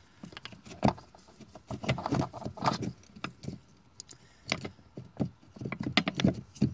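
Irregular plastic clicks, taps and rattles as an Auxbeam 9005 LED headlight bulb is twisted and locked into the ATV's headlight housing and its wiring is handled.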